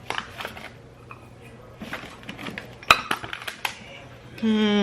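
Kitchen utensils and a measuring cup clinking and tapping against a mixing bowl, with a sharper knock about three seconds in. A voice hums a steady note briefly at the very end.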